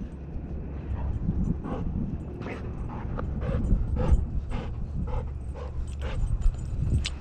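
Golden retriever panting steadily, about two breaths a second, heard close up from a harness-mounted camera on its back. A low rumble of handling and movement noise sits underneath.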